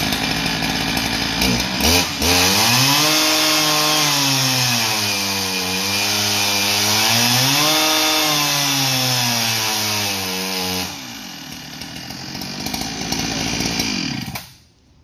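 Farmertec G395XP two-stroke chainsaw engine, a Husqvarna 395XP clone, running at full throttle on a chainsaw dyno for a stock power run. Its pitch sags under the dyno's load and climbs back twice. About eleven seconds in the throttle is let off and the engine note falls away, dying out near the end.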